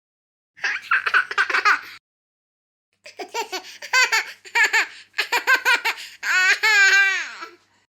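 Baby laughing in short breathy fits: a burst of laughs about half a second in, a second of dead silence, then a longer run of laughing that ends in one long drawn-out laugh near the end.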